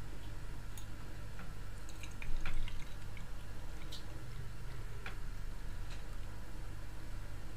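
Tea being poured from a glass French press into a glass mug: a thin stream trickling and dripping into the glass, with a louder knock about two and a half seconds in.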